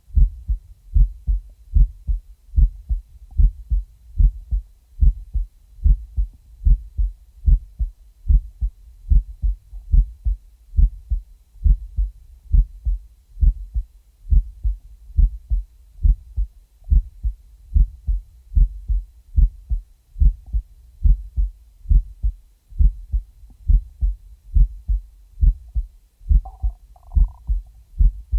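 Heartbeat: a steady, even rhythm of low thumps, about two a second. A brief higher-pitched sound briefly rises over it near the end.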